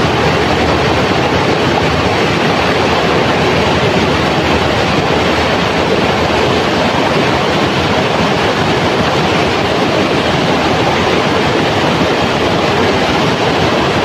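River rapids: fast, shallow water rushing over a rocky, boulder-strewn bed, a loud, steady rush with no breaks.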